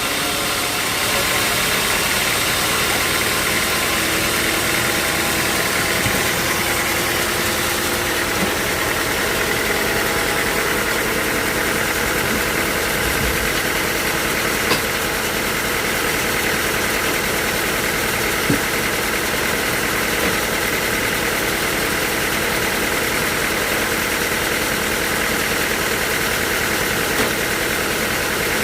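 Sawmill machinery running steadily, with a few short sharp knocks.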